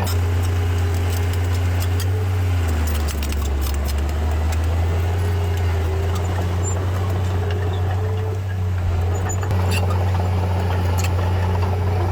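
Heavy earthmoving machine's diesel engine running steadily, its note dipping slightly about three seconds in, with scattered metallic clicks and rattles.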